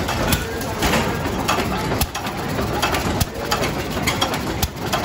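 Antique single-cylinder stationary gas engine running, its flywheel turning, with sharp clicks and knocks coming at irregular intervals over a steady mechanical clatter.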